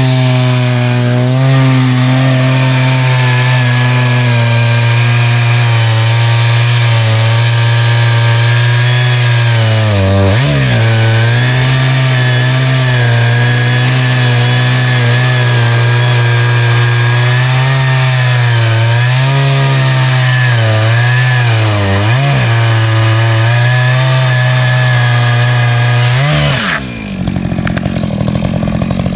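Echo CS-590 Timberwolf two-stroke chainsaw with a ripping chain, running flat out as it rip-cuts cedar in a chainsaw mill. The engine pitch sags briefly a few times under load, then the throttle is released near the end and it drops to idle.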